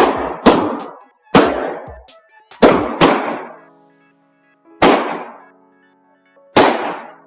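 Pistol shots, seven in all at uneven spacing, two of them close together near the start. Each is a sharp crack with a short ringing echo.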